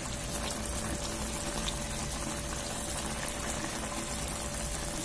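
Pot of chicken adobo simmering, with a steady bubbling and a faint steady hum under it.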